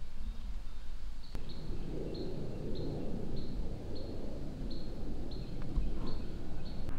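A regular series of short, high chirps from a small animal calling in the woods, about one and a half a second, over a low rumble, with a spell of rustling in the middle.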